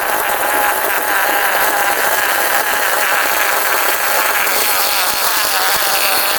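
A small high-revving motor running steadily under a loud, even hiss.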